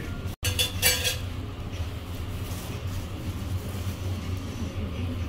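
Steady low hum of kitchen machinery, with a brief crinkle of plastic gloves and piping bag about half a second in as a donut is handled.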